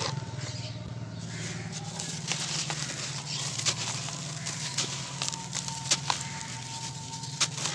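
Dry charcoal cement chunks crunching and crumbling in the hands and dropping into a bowl of water. The sound is a scatter of sharp cracks and gritty crackle.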